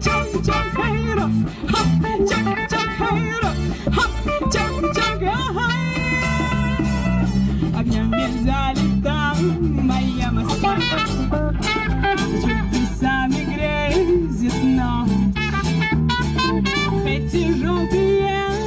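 Live band music through PA speakers: drum kit keeping a steady beat, djembe, guitars and a bass line.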